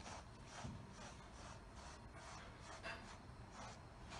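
Faint, scratchy strokes of a pet grooming brush rubbing through a cat's fur, about three a second.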